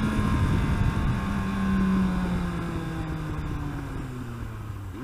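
Yamaha R1 inline-four sportbike engine winding down after a hard acceleration, its pitch falling steadily as the bike slows, with wind rushing over the microphone.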